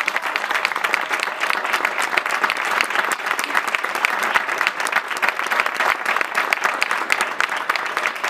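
Crowd applauding: many people clapping in a dense, steady patter that does not let up.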